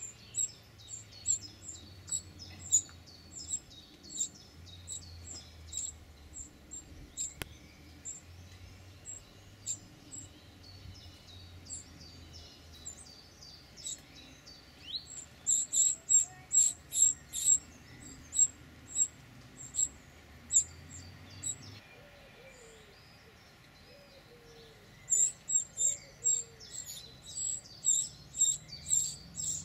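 Winter wrens at a nest box giving short, high chirps, about two to three a second, which grow louder in two spells, around the middle and again near the end.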